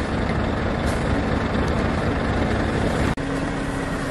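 Timber truck's diesel engine idling with a steady low hum; the hum shifts abruptly to a slightly higher, clearer tone about three seconds in.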